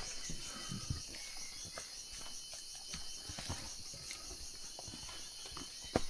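Jungle insects keeping up a steady, high, pulsing chorus, with scattered footsteps and crunches of people walking along the trail.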